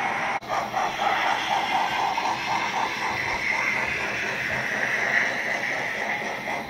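Sound decoder (ESU LokSound 5 micro) playing a class 01 steam locomotive's running sound through a small speaker in the H0 model's boiler: a quick, even beat of steam chuffs synchronised to the two cylinders, with a hiss swelling up in the middle. The model's wheels rolling on the track add a light rumble.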